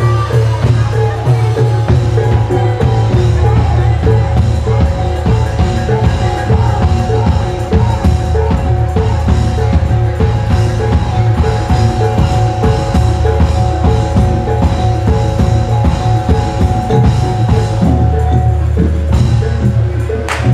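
Javanese jaran kepang (kuda lumping) gamelan music played live: drums beating a dense, steady rhythm under a repeating pattern of pitched gong-chime notes.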